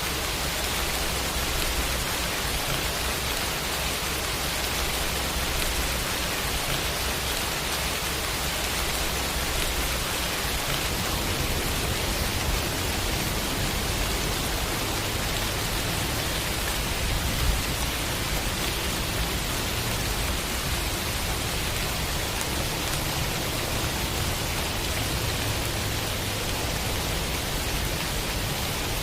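Steady rainfall: a continuous, even hiss of rain falling.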